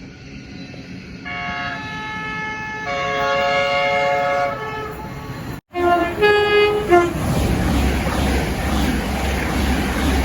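Train horn blowing a chord of several notes, growing fuller and louder about three seconds in. After a sudden cut, a few short, lower horn blasts are followed by the heavy rumble of the train passing.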